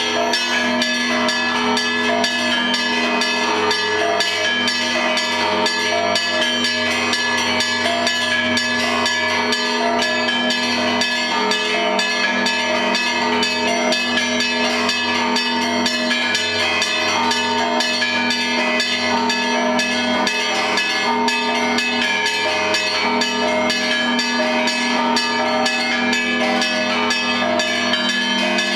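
Russian Orthodox church bells ringing a zvon: several bells of different pitches are struck in a fast, unbroken peal, and the lower bells' tones hang steady underneath.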